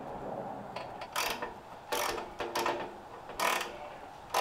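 Socket ratchet clicking in about four short runs of strokes, tightening a new spark plug down into the generator's engine.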